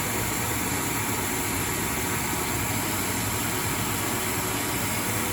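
ProtoTrak CNC lathe running steadily with a carbide insert rough-turning a 4140 heat-treated steel shaft: an even machine hum and hiss with no breaks.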